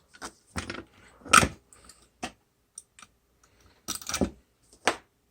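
Handling noises: a string of irregular clicks, knocks and rustles, the loudest a knock about a second and a half in, with another cluster about four seconds in.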